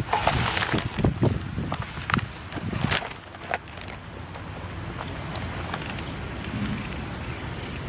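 Rustling and clattering as cat food is put down in a plastic tray, busiest over the first three seconds or so, then a steady low hiss as the cat eats.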